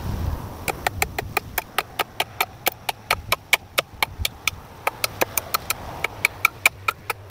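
Hammer rapidly striking a nail into a wooden board, about five quick, sharp, slightly ringing blows a second, starting about a second in. Wind buffets the microphone at the start.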